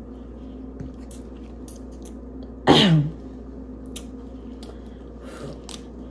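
Scattered faint clicks and crackles of boiled shellfish shells being picked apart by hand. Nearly halfway through comes one short, loud vocal sound from the eater that slides steeply down in pitch.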